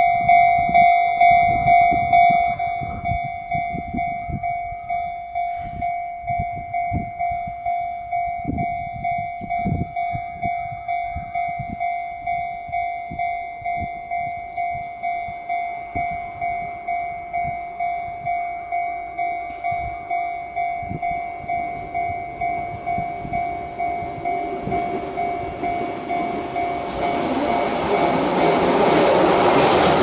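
Japanese level-crossing warning bell ringing steadily at about two strikes a second; it drops to a quieter setting about two seconds in as the barriers come down. Near the end a Keihan 700-series electric train approaches and runs onto the crossing, its rising running noise covering the bell.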